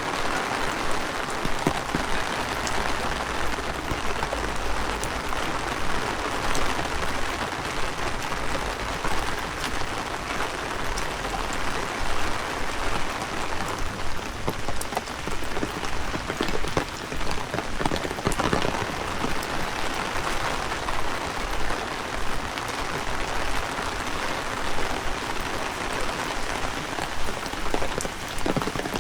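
Heavy rain falling steadily and splashing on the street, with frequent sharp drop hits scattered through it.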